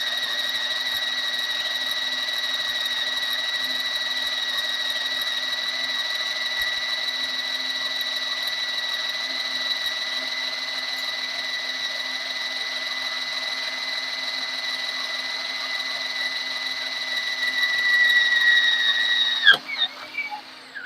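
Handheld power drill boring a hole in a metal railing with a sharp bit: a steady high-pitched whine that runs until about nineteen seconds in, when the pitch drops and the drill stops.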